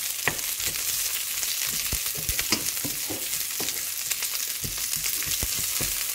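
Sliced onions and green chillies sizzling in hot oil in a non-stick wok, being sautéed, with a wooden spoon stirring and knocking irregularly against the pan.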